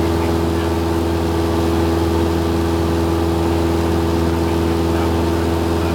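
Piston engine and propeller of a single-engine light aircraft droning steadily in flight, heard from inside the cockpit.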